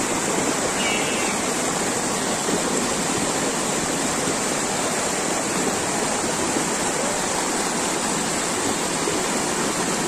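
Steady rush of water flowing over a rocky stream bed, unbroken throughout.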